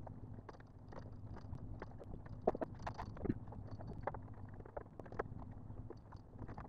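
Irregular scratching and clicking of a small hand scraper working rust out of the seam of a steel pickup tailgate, with a few sharper scrapes in the middle, over a steady low hum.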